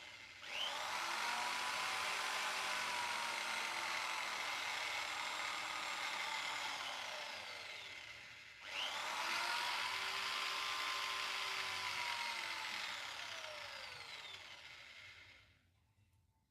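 Electric drill spinning a cloth polishing buff against a motorcycle engine block, run in two bursts. It whirs up about half a second in, its whine slowly sinking, stops briefly a little past halfway and starts again, then winds down and stops near the end.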